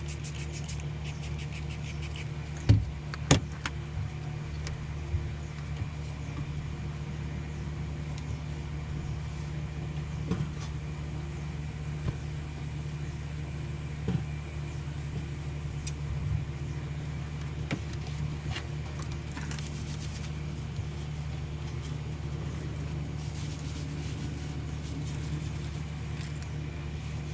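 A steady low mechanical hum, with scattered short knocks and clicks, two of them loud a few seconds in, and a faint high hiss for several seconds around the middle.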